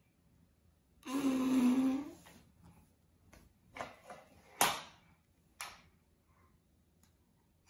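A baby making a steady trumpet-like toot with her own voice for about a second, then a few light clicks of the plastic toy trumpet knocking on the wooden floor as she handles it.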